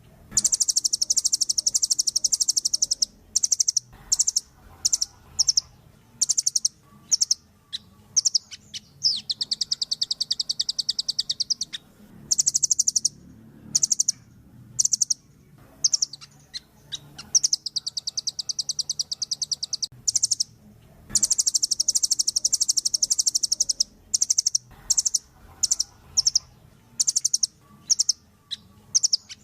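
Velvet-fronted nuthatch singing: fast trills of sharp, high notes, in runs that last from a fraction of a second up to about three seconds, with short gaps between them.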